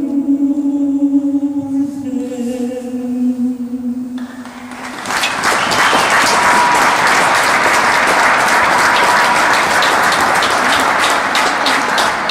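A woman's voice holding a final sung note for about four seconds, then a crowd applauding from about five seconds in until the end.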